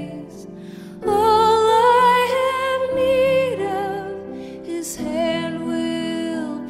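A slow song: a singer holding long notes with vibrato over sustained instrumental backing, growing louder about a second in.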